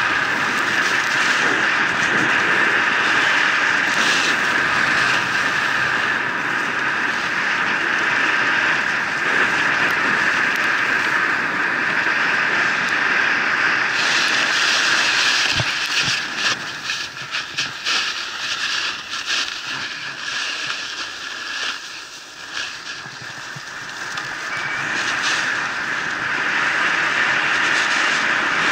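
Wind rushing over an action camera's microphone as it travels down a ski slope, mixed with the scrape of skis on snow. A little past the middle it turns quieter and patchy, with scattered clicks, then builds back up near the end.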